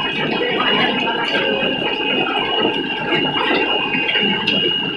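Hail and heavy rain falling on a street and parked vehicles: a dense, steady patter of many small hits, with a steady high tone running through it.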